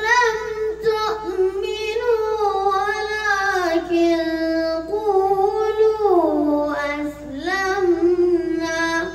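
A young boy's voice chanting a Quran verse in slow melodic recitation, drawing out long held notes that glide down in pitch about four and six seconds in, then rise again before the phrase ends.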